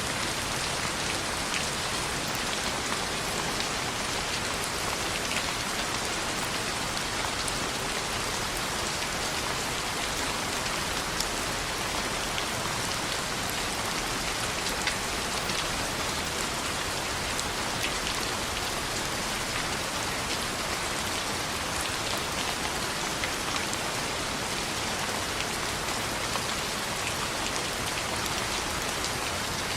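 Steady rain falling on a window, with scattered faint sharp crackles of a wood fire in a fireplace.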